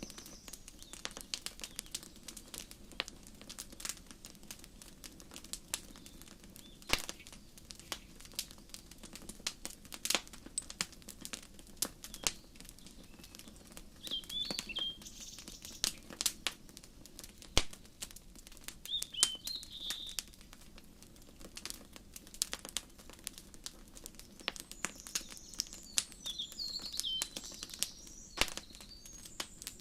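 Wood fire crackling with frequent sharp pops, while small birds chirp in short high calls a few times, around the middle and again near the end.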